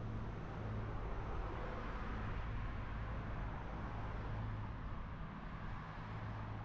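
Steady city street traffic noise, the hiss of passing cars and tyres on the road, with a low hum underneath.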